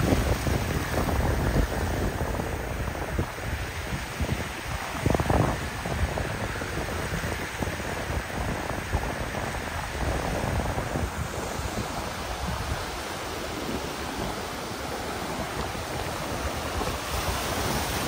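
Atlantic Ocean surf washing in over a sandy beach: a steady hiss of small breaking waves and foamy swash. Wind buffets the microphone in low gusts, strongest just after the start and about five seconds in.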